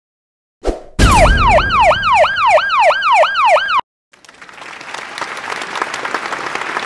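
An alarm siren sound effect: a loud wail that sweeps down in pitch about three times a second. It starts just after a click about a second in and cuts off suddenly midway. A crackling rush of noise then swells toward the end.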